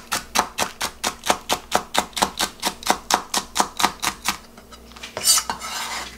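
Kitchen knife rapidly chopping the green part of a Korean large green onion (daepa) on a plastic cutting board, about five strokes a second, stopping a little over four seconds in. Then a short rustling scrape as the chopped pieces are gathered up.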